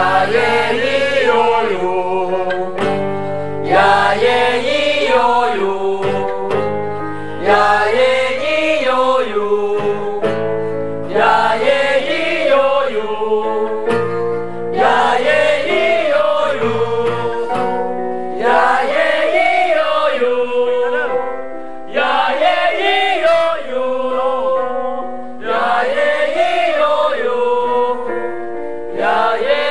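A group of young singers doing a vocal warm-up drill together. They sing the same short up-and-down scale phrase on syllables, once about every four seconds and eight times over, to an acoustic guitar.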